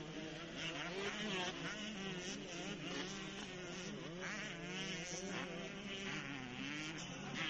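Several motocross bike engines buzzing at a distance, overlapping, their pitch rising and falling again and again as the riders open and close the throttle and change gear.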